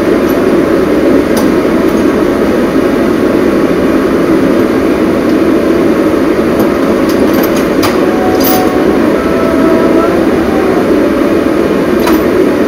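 Steady engine and road noise heard from inside a moving car's cabin, with a few faint clicks.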